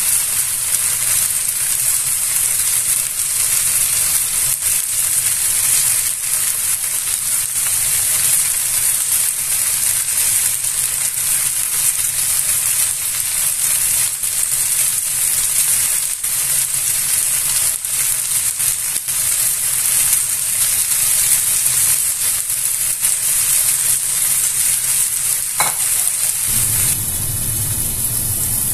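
Lamb ribs frying in a Saladmaster electric skillet: a steady sizzle that drops off near the end, leaving a low hum.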